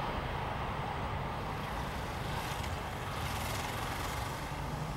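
Steady outdoor background rumble with no distinct events, typical of distant traffic or aircraft.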